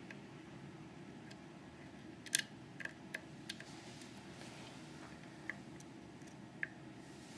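Sparse small metallic clicks and ticks of lock picks working the key pins and finger pins of a Schlage Primus lock under tension. The loudest is a sharp double click a little past two seconds in, with a few lighter ticks after it, over a faint steady hum.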